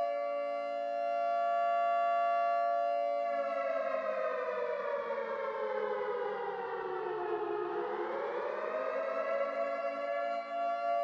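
Curfew siren sounding: a civil-defence-type siren holding a steady tone, then sliding down in pitch for about four seconds and rising back to its steady tone near the end.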